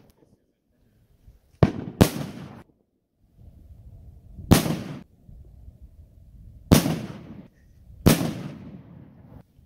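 Aerial fireworks bursting overhead: five sharp bangs, two in quick succession and then three more spaced a couple of seconds apart, each dying away over about half a second.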